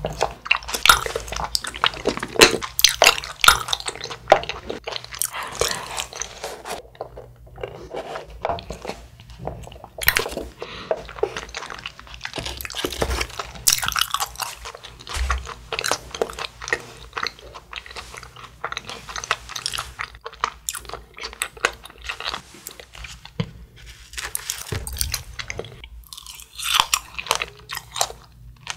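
Close-miked chewing with many quick, wet mouth clicks and smacks.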